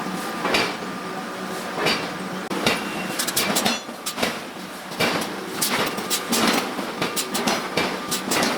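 Hammer blows on iron being forged: sharp metallic strikes at an irregular pace, roughly one or two a second with some quick clusters, over a steady background hum.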